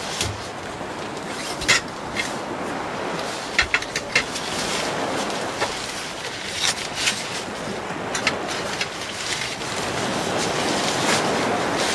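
Nylon wind-scoop fabric rustling and crinkling as it is folded and rolled up, with sharp clicks and taps from its aluminium and plastic poles, over a steady rushing noise.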